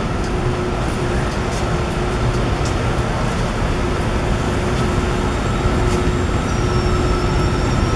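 Power Pusher E-750 electric wheelbarrow under power on a concrete floor, loaded with broken concrete: a steady hum and rolling rumble, with a few light clicks and knocks.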